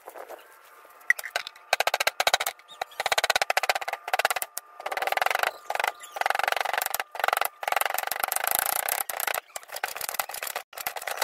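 Hand-held grinding stone rocked and rubbed rapidly on a flat grinding slab (Nepali silauto and lohoro), crushing a spice paste. It makes fast, rhythmic knocking strokes in bursts separated by short pauses.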